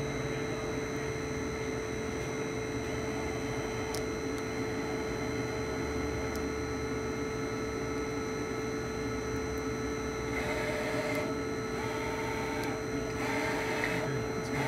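Milltronics VK2 CNC vertical mill's table being jogged left and right by its axis drive: a steady mechanical whine over a constant hum. About ten seconds in come four short bursts of higher whine, under a second each.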